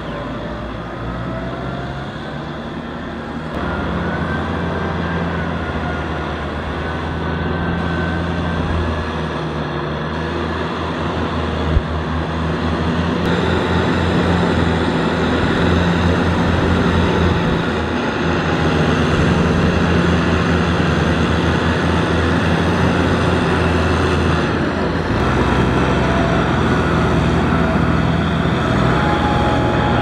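Kubota tractor's diesel engine running steadily under load while it ploughs through a flooded paddy, with water and mud splashing around the wheels.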